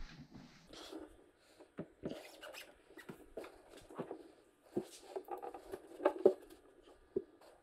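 A hard stretched saddlebag being set onto a Harley-Davidson Street Glide's saddlebag mounts. It makes scattered, irregular knocks and clicks against the bike's mounting hardware, with light scraping in between.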